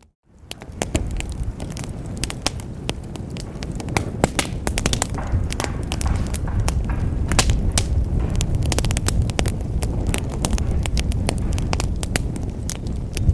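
Wood fire in a fireplace crackling, with many irregular sharp pops over a steady low rumble of burning. The sound drops out for a moment at the very start and fades back in.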